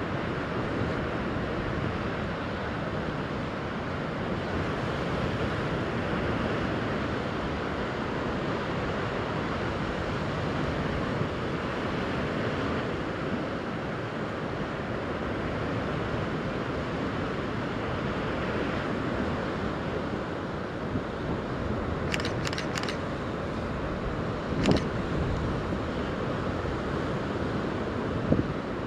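Steady rush of wind buffeting the microphone over lapping harbour water, with a few short clicks about two-thirds of the way in and a sharper knock shortly after.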